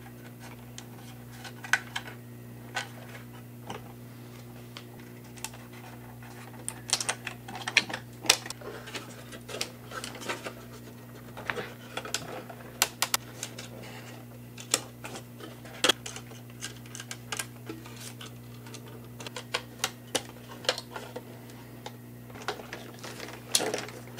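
Irregular small clicks and taps of hard plastic parts being handled and pressed onto the plastic hull of a 1:16 RC model tank, over a steady low hum.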